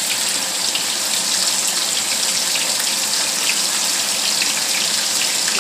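Green-banana slices (tajadas) frying in hot oil: a steady sizzling hiss with many small crackles.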